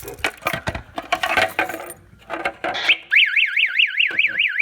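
Clicking and rattling of a plastic stopper cover being handled over a fire alarm pull station. About three seconds in, the stopper's local siren sounds a loud, fast warble, rising and falling about five times a second, warning that the pull station is about to be pulled.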